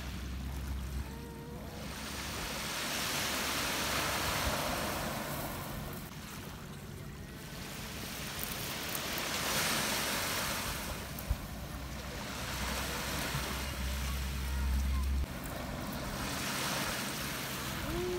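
Small sea waves breaking and washing up over a pebble shore, the surf swelling and falling back every five or six seconds. Wind rumbles on the microphone at times.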